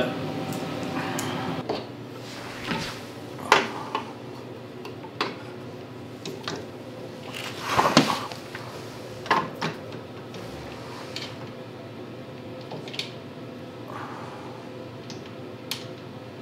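Metal parts clinking and knocking as a replacement electric starter is held against a snowblower engine and its mounting bolts are started by hand. The clicks and knocks come at irregular intervals over a steady background hum.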